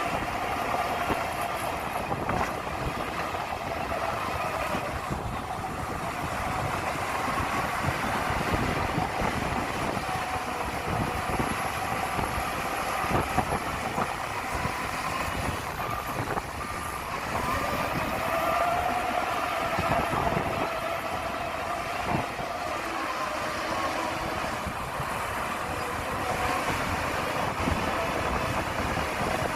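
Heavy earthmoving machinery working: a diesel engine running under load with a steady clanking rattle and whining tones that slowly rise and fall.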